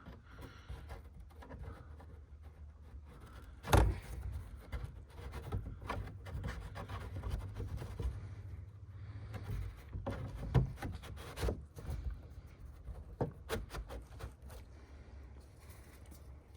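Scattered knocks and clunks of underbody cover panels being handled and fitted back under the car, the loudest about four seconds in, over a steady low hum.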